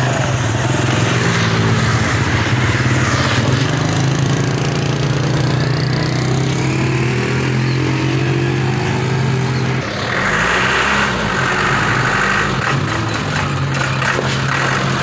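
Motor vehicle engines running steadily, with a rise in engine pitch midway and a change to a different engine sound about ten seconds in.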